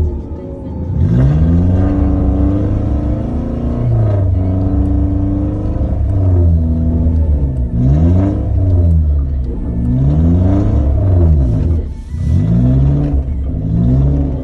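Suzuki Jimny engine revving hard over and over, heard from inside the cabin, its pitch dropping and climbing again every second or two as the stuck car is driven to get free.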